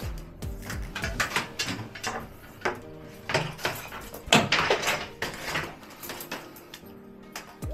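Electrical cable sliding and scraping through plastic conduit as it is pulled and handled, in irregular rustling bursts. The loudest bursts come about halfway through.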